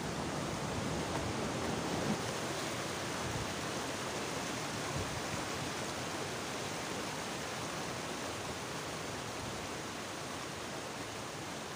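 Muddy stream water rushing steadily over rocks and boulders.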